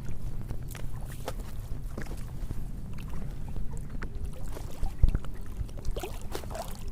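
Water sloshing and small handling knocks as fishing gear is worked in the water, over a steady low rumble of wind on the microphone. One heavier thump comes about five seconds in.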